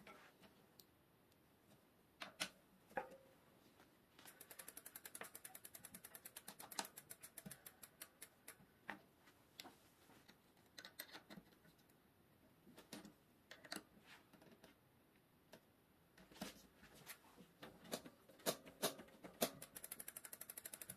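Rear bicycle wheel spinning freely, its freehub pawls ticking in a fast even run about four seconds in and again near the end. In between come scattered small clicks and taps as the mechanical disc brake caliper is handled.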